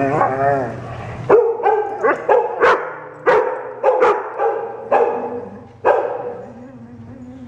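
A dog whining with a wavering pitch, then about ten short, high barks in quick, uneven succession, trailing off into a quieter, drawn-out whine near the end.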